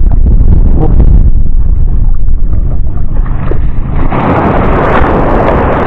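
Wind buffeting the microphone, making a heavy low rumble. About four seconds in, a hissing wash of seawater joins it as a wave rolls in around the wading angler.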